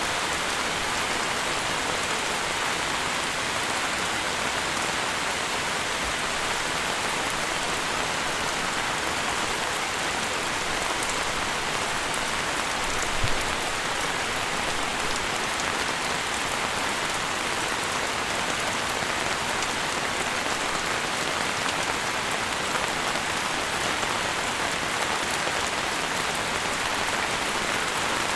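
Steady rain falling, an even, dense hiss of drops with no let-up. About halfway through there is one brief low thump.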